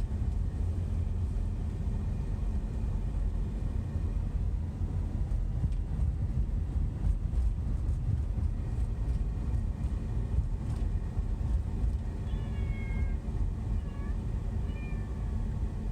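Steady low road and engine rumble inside a moving SUV's cabin. From about twelve seconds in, a few faint, wavering, cat-like meows come and go over it; their source is unknown to the owner, with the radio off.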